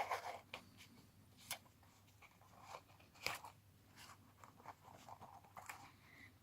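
Faint, scattered clicks and light knocks of hand tools being handled in a tool kit, with a few sharper clicks among them.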